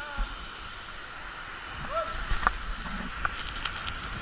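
Waterfall water rushing and splashing steadily, with scattered knocks and clicks and a short voice about two seconds in.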